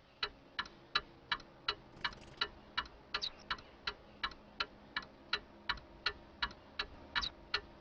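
Clock ticking steadily, a little under three sharp ticks a second.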